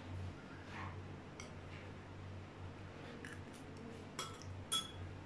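A few light clicks and scrapes of a fork against a plate as a child eats, over a low steady hum.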